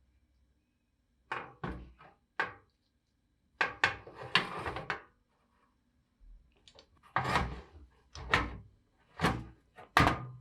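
A series of short knocks and clatters, about eight in all at irregular spacing, with a longer rattling scrape near the middle.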